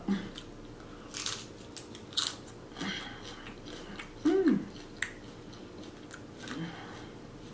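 Crunching and chewing of a Caesar salad with crisp romaine lettuce, in irregular crisp crunches about a second apart. About four seconds in there is a short hum with a falling pitch.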